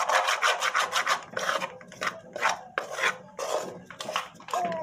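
Metal spoon scraping and stirring dry flour against the bottom of a large metal pot as the flour is toasted, in quick repeated rasping strokes, a few a second, easing off in the second half.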